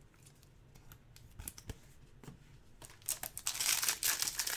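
Trading card pack wrapper being crinkled and torn open, starting about three seconds in after a few faint clicks of cards being handled.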